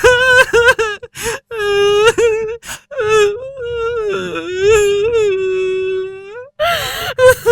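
A high-pitched voice crying in drawn-out, wavering cries: several short ones, then one long held cry that sags slightly in pitch before stopping.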